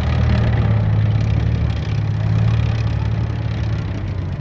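BMP-1 infantry fighting vehicle's V6 diesel engine running steadily under load as it churns through deep sand, with the rattle of its tracks; the sound eases slightly as the vehicle moves away.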